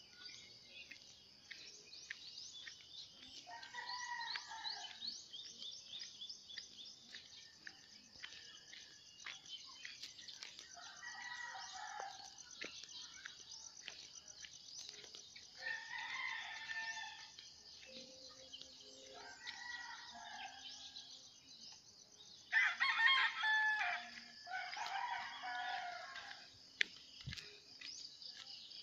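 Roosters crowing about six times, a second or so each, with the loudest two crows back to back near the end. Under them runs a steady, high-pitched trilling of insects.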